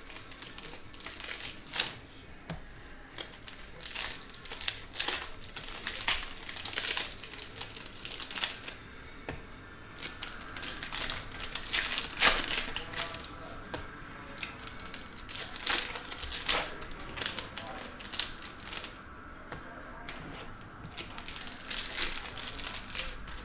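Stack of Bowman baseball cards being flicked through by hand, with crinkling of opened foil pack wrappers: irregular rustles and quick clicks of card edges.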